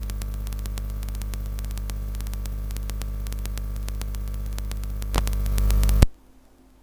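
Loud electrical mains hum with a crackling buzz of rapid clicks, of the kind picked up as interference in an audio line. It gets louder about five seconds in, then cuts off suddenly with a pop about a second later.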